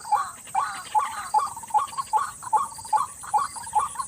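White-breasted waterhen's repeated croaking call, short notes about two to three a second in an even rhythm, the call used as a lure to draw the bird in.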